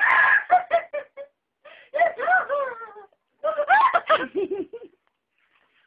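A girl laughing and giggling in three bursts with short breaks between them, high-pitched, in a small room.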